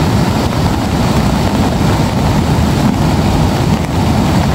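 Wind buffeting the microphone in stormy weather, a loud, steady low rumble.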